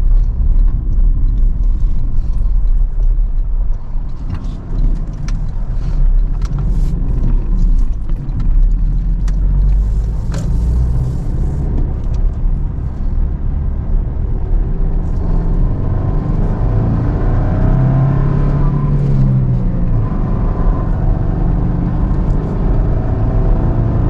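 Pickup truck driving, heard from inside the cab: steady engine and road rumble, with scattered clicks and rattles over the first several seconds and the engine note rising and falling later on.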